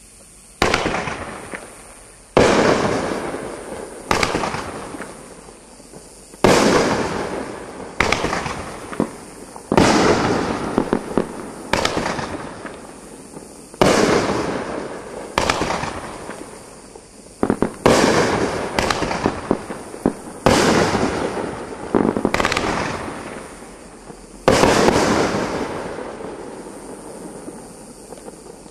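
Consumer 9-shot aerial fireworks cake firing its shots one after another, about two seconds apart. Each shot is a sharp bang that fades away over a second or two.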